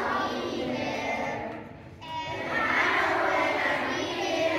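A choir of elementary-school children, grades 3 to 5, singing together. There is a short break between phrases a little past the middle, then the singing picks up again.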